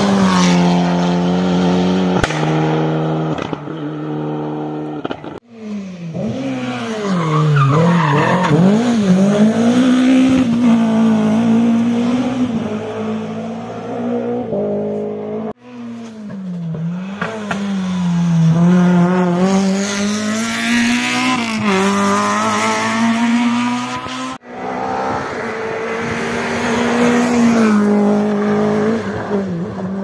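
Rally car engines revving hard through several passes, cut together abruptly. The pitch climbs under acceleration, steps down at gear changes and drops off on braking.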